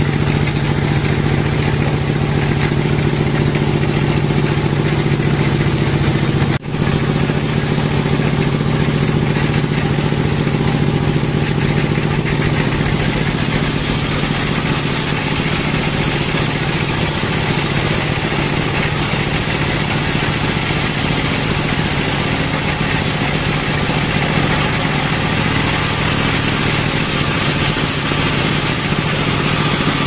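Band sawmill running steadily, its engine drone under the hiss of the band blade sawing through a log lengthwise. There is a brief break about six and a half seconds in, and the high hiss of the cut grows louder about halfway through.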